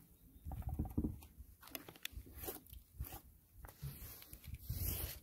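Irregular scratchy rubbing strokes as primer is spread over an already-primed roof surface, mostly wiping the dust off it.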